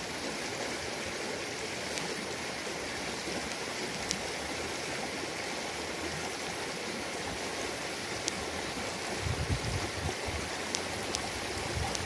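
Shallow mountain river running over a rocky bed, a steady rush of water over stones. A brief low rumble comes in about nine seconds in.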